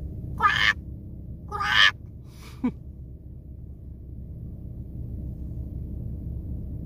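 Two short, harsh animal calls, about a second apart, with a fainter third just after, over a steady low rumble of the car.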